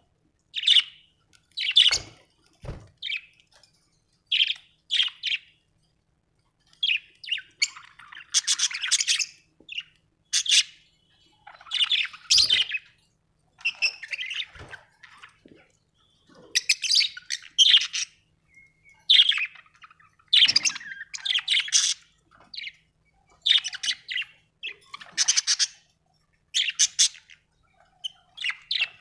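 Budgerigar chirping and warbling in quick, high-pitched bouts: short chirps mixed with longer chattering song phrases, separated by brief pauses.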